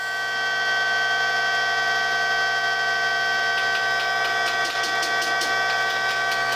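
Electric motor of a horizontal boring machine running free with a steady whine, its bit not yet in the wood. Light clicks and knocks come in from about halfway.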